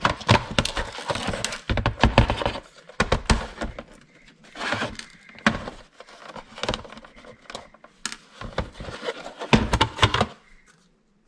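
Plastic case of a consumer atomic clock being handled and pulled apart on a workbench: irregular clicks, knocks and light clatter of plastic parts, with quieter gaps around four seconds in and near the end.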